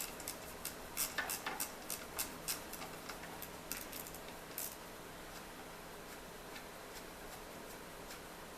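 Light metallic clicks and taps from tools and gearbox parts being handled while the gear-shift mechanism of a manual transmission is unbolted. There are a dozen or so irregular ticks in the first half, then only faint room noise.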